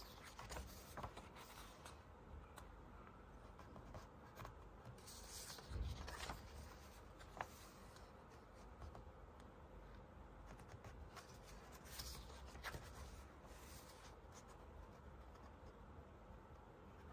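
Faint rustling of paper as the pages of a bound book are handled and turned, with two page turns in the middle and a soft thump about six seconds in.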